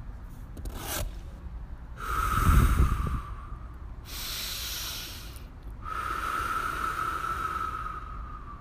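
Heavy, breathy exhalations: a short puff, then three long breaths. The first long breath is the loudest, with a deep rumble, and the last carries a faint whistling tone that slowly falls.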